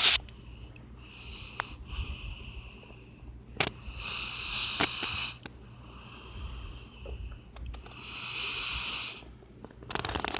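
Puppy snoring in its sleep: a wheezy, breathy snore with each breath, coming back about every two seconds, with a few short clicks between breaths and a quick fluttering rattle near the end.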